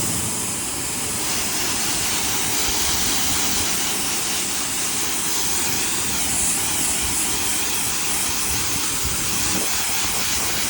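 Pressure washer spraying a steady jet of water, rinsing snow foam off a truck's ceramic-coated paint.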